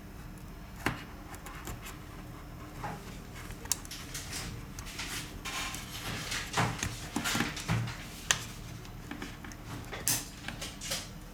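Scattered clicks, taps and short scrapes of small tools and parts being handled on a work surface, busiest in the middle, over a faint steady hum.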